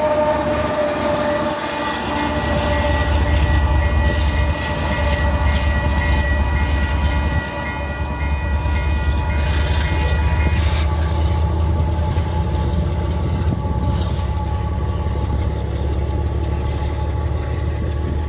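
A railroad crossing's electronic bell, a General Signal E-bell with WCH internals, ringing in steady high tones, over the low rumble of a freight train's last locomotive rolling past. The highest tones of the bell stop a little past halfway; lower tones and the rumble go on.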